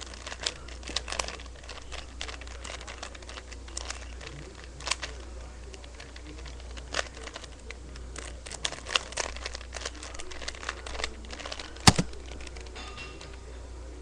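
Plastic Rubik's cube being turned and handled: irregular sharp clicks in scattered clusters, with one much louder click near the end.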